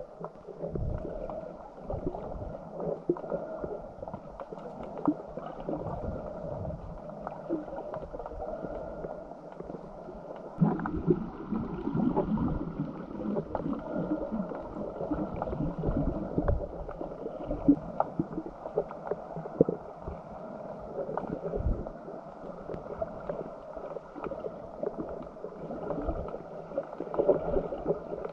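Water sloshing and gurgling around a snorkeller's camera as they swim, heard muffled, with many irregular small knocks and crackles throughout.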